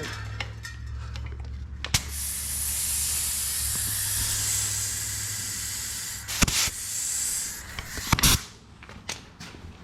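A long, steady hiss of gas under pressure, starting abruptly about two seconds in and lasting about six seconds, with a few sharp knocks around it.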